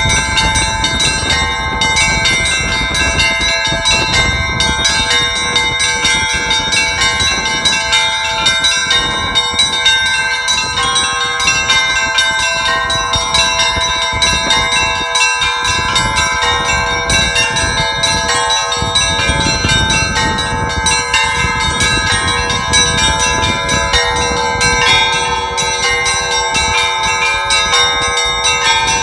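Orthodox church belfry bells rung together in a continuous, loud peal, several bells struck rapidly so their tones overlap and ring on. A lower bell joins near the end.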